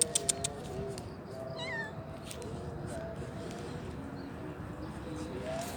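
Street cat meowing once, a short high wavering call that falls in pitch about a second and a half in. Just before it comes the tail of a quick run of clicking "pus-pus" calls used to call the cat.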